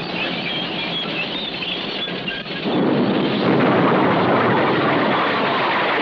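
Battle sound effects: a continuous rumbling din with faint high squeals, which grows louder about two and a half seconds in.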